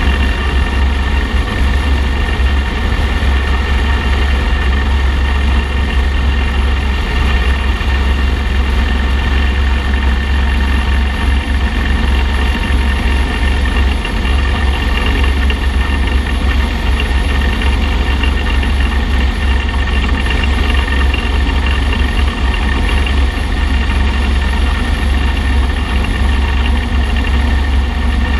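Motorcycle riding at a steady cruising speed, its engine running evenly under a heavy low rumble of wind and road noise.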